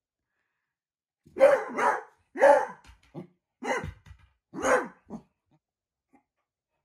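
A beagle barking at a shadow: about five barks roughly a second apart, starting about a second in, some trailed by a short softer huff.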